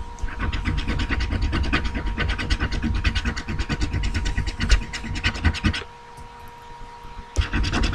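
Scratch-off game card being scratched in rapid, quick strokes, pausing for about a second and a half near the end before the scratching starts again.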